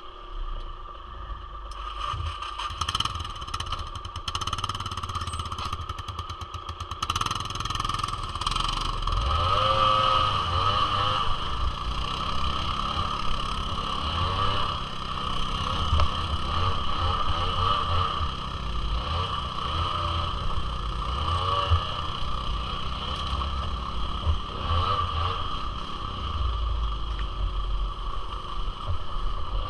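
Small single-cylinder two-stroke engine of a Suzuki LT80 ATV running under way, its pitch rising and falling as the throttle opens and closes, with rattling in the first several seconds.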